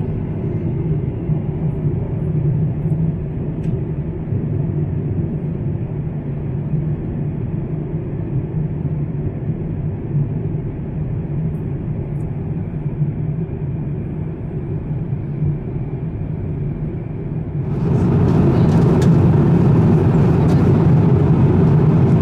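Steady rumbling cabin noise inside an Airbus A350-900 in flight, from its Rolls-Royce Trent XWB engines and the airflow over the fuselage. Toward the end it becomes louder and brighter, with a few faint clicks.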